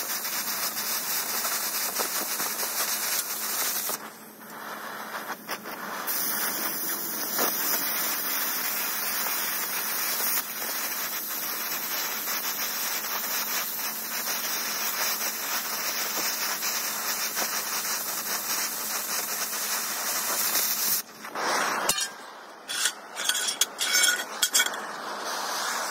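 Oxy-fuel cutting torch cutting through steel plate: a steady hiss from the cutting jet, which drops away for about two seconds early in the cut. Near the end the hiss stops and gives way to a few short, irregular noises.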